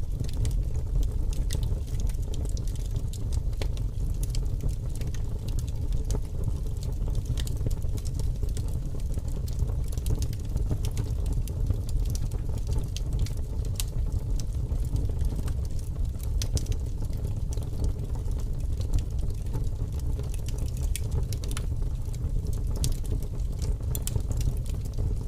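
Wood fire burning in a fireplace: a steady low rumble of flames with frequent small crackles and pops scattered through it.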